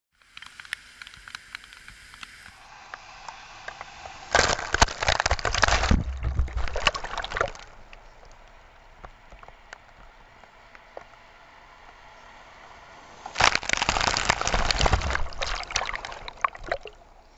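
Feet wading and splashing through shallow floodwater right beside a camera at water level, in two loud bursts of a few seconds each, over a steady wash of running water and rain.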